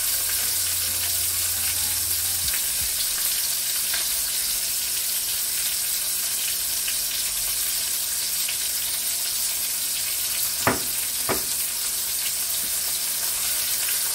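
Pork chops sizzling as they fry in a pan of oil and butter, a steady hiss, with two sharp clicks close together about ten and a half seconds in.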